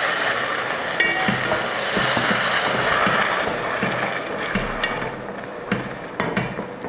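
Tomato puree sizzling in hot oil with sautéed onions, stirred with a spatula that scrapes and taps the pot. The sizzle dies down over the last two seconds.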